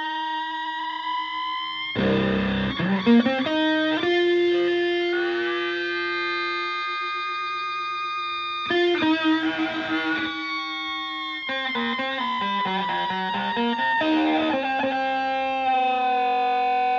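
Stratocaster played through an ESR Graphic Fuzz pedal into a Fender Twin Reverb–style amp: fuzzed electric guitar notes that hold for several seconds between short picked phrases.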